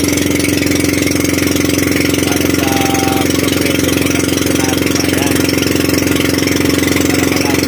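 Outrigger boat's (bangka) engine running steadily, a constant even drone with no change in speed.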